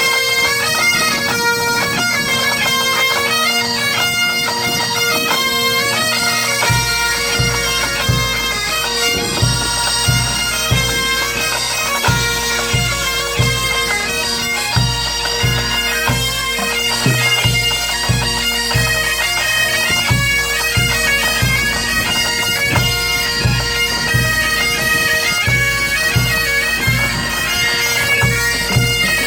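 Breton bagad (pipe band) playing: bagpipes sound a melody over a steady drone, and a bass drum joins in with a regular beat about seven seconds in.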